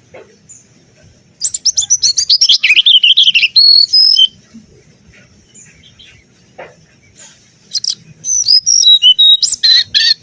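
Mangrove whistler singing: two loud bursts of rapid, varied warbling phrases a few seconds apart, each ending in clearer whistled notes, with faint chirps in between.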